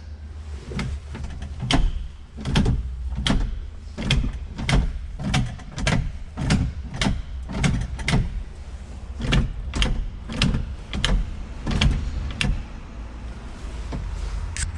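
A hammer striking metal again and again, nearly two blows a second, over a steady low rumble, as the tractor is knocked apart for a transmission repair.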